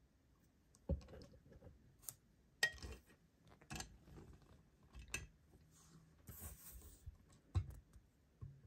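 Faint handling noises from a JC Wings 1:200 Airbus A380 model being picked up and turned in the hand: about half a dozen light knocks and clicks, with a brief rustle a little past the middle.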